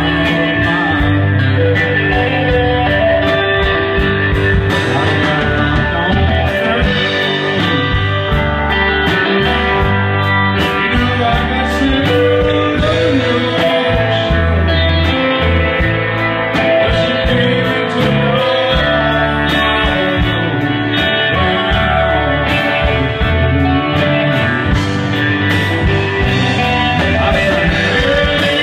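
Live band playing a blues-rock song, with electric guitar to the fore over a steady beat.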